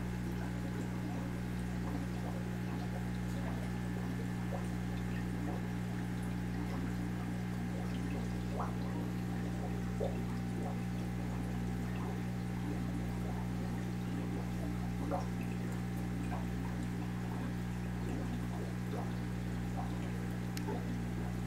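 Aquarium water circulation: water trickling and pouring over a steady low pump hum, with scattered small clicks and two sharper ticks about ten and fifteen seconds in.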